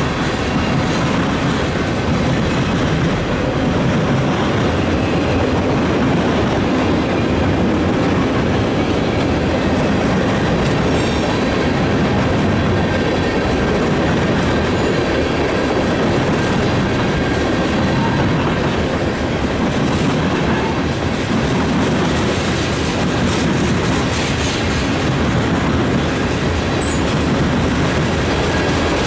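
Freight train's tank cars and covered hoppers rolling past close by, their steel wheels running on the rails in a loud, steady din.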